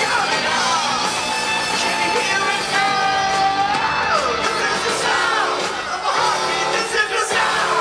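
Live rock band playing loudly, with electric guitars, drums and a lead vocal that holds a long note about three seconds in.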